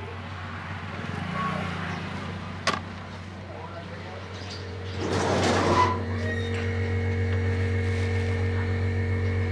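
A motor running with a steady low hum, a sharp click a little before three seconds in, and a rushing surge about five seconds in, after which it settles into a steadier, louder drone.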